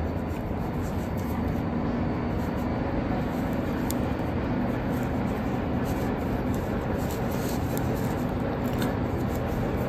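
Steady background hum and hiss, with a few faint light clicks of knitting needles.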